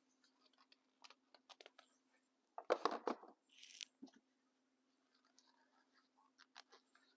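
Small handling noises as two-part epoxy is squeezed out onto a scrap of cardboard: scattered light clicks and taps, a brief louder crinkling rustle about two and a half seconds in, and a short scrape just after.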